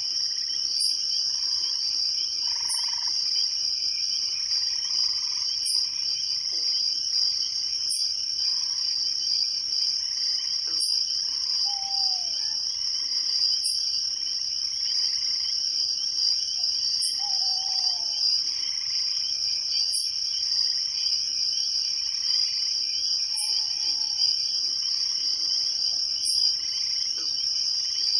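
Night chorus of crickets trilling steadily, with a short high chirp about every three seconds. A few short, lower falling calls from frogs come now and then.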